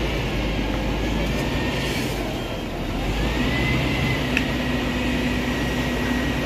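Steady rumbling, rushing noise of a fire engine's pump running while a fire hose sprays water, with a brief dip about three seconds in.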